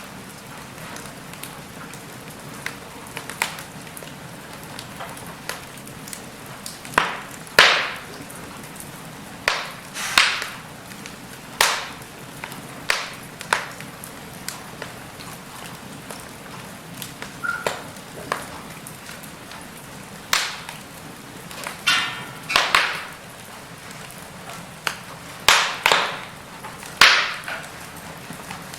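Wood logs burning in a fireplace: a steady low hiss of the flames with irregular sharp crackles and pops, a loud one every second or two.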